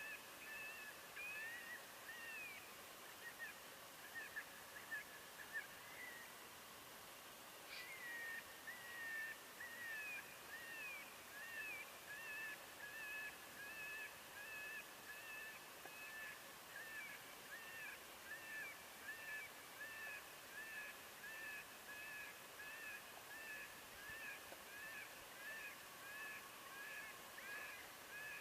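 Faint high-pitched calls from an electronic predator caller playing on a loop, short notes at two fixed pitches repeated a little under two a second, with a single sharp click about eight seconds in.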